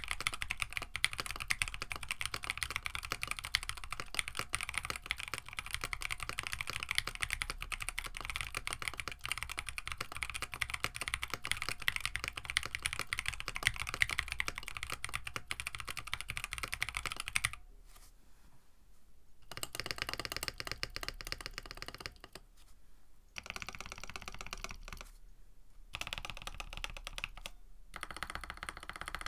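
Mechanical keyboard with EV-00 switches on an FR4 plate (KBD67 Lite) being typed on: fast continuous typing for a little over half the time, then shorter runs of keystrokes with brief pauses between them. The uploader finds these unlubed-feeling, rail-bottom-out switches sound muted and a bit dead in this board.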